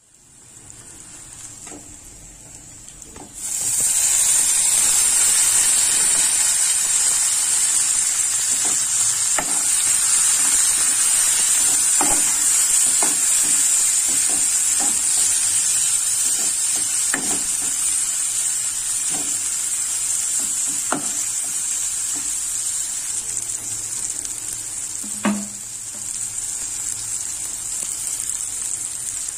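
Onions and chopped tomatoes sizzling steadily as they fry in oil in a metal pan, the sizzle jumping much louder about three seconds in. A metal spoon stirring clicks against the pan now and then, once more sharply near the end.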